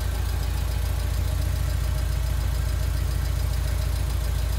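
A 2008 Honda Civic's four-cylinder engine idling steadily as a low, even hum.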